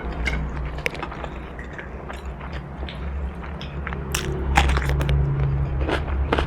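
Crunchy food being bitten and chewed close to the microphone: a run of irregular sharp crunches that come thickest about two-thirds of the way in, over a low steady hum.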